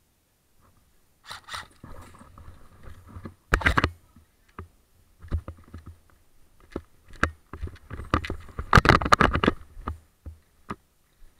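Close clatter and sharp knocks from an airsoft rifle and kit, coming in short rapid runs with single knocks between; the densest runs come about a third of the way in and again near three-quarters of the way.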